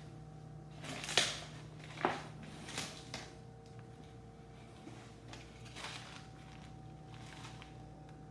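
Handling noise: a few short rustles and knocks, the loudest just over a second in, over a steady low hum.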